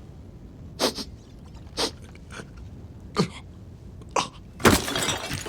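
A man coughing and choking in about five short, harsh spasms spread across a few seconds, the loudest near the end, some ending in a strained groan. He is choking on a lethal sneeze that was blown into his face.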